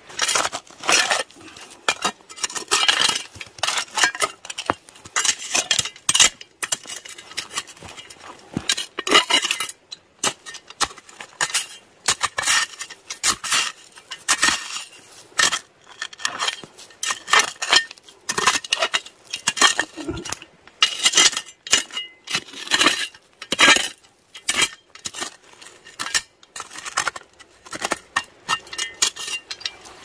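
Irregular clinks and knocks of metal camp cookware and utensils being handled, in quick clusters with short pauses between them.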